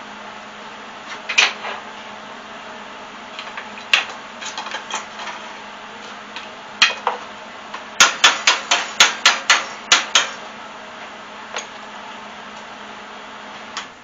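Sharp metal-on-metal taps of a hand tool on a wrought-steel chandelier arm at a fresh tack weld: a few single knocks, then a quick run of about eight strikes in two seconds past the middle. A steady low hum sits underneath.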